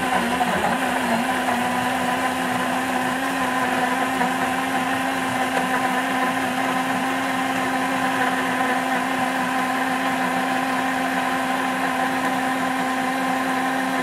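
BlendyGo 3 portable battery blender running continuously at a steady pitch, its motor humming as the blade churns a milk, fruit and oat shake.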